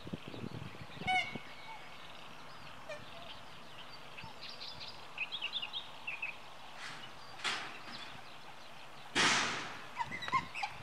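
Scattered short, high bird chirps over a steady outdoor hiss, with a trilled call about a second in. A brief rushing noise comes about seven and a half seconds in, and a louder half-second rushing burst a little after nine seconds.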